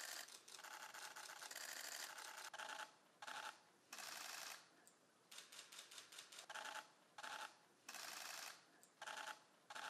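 Press photographers' camera shutters firing in rapid bursts of clicks. About a dozen bursts follow one another, some brief and some lasting a second or two, with short gaps between.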